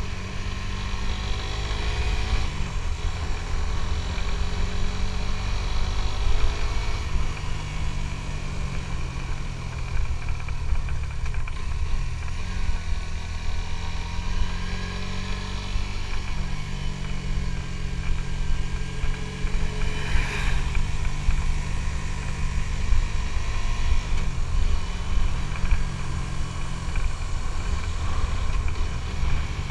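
Suzuki GSX-S150's single-cylinder engine running on the move, its note rising and falling several times, over heavy low wind rumble on the microphone.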